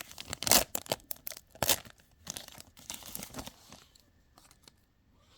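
A trading card pack wrapper being torn open and crinkled, a quick run of short rasping tears and crackles that dies away after about three and a half seconds into a few faint ticks of card handling.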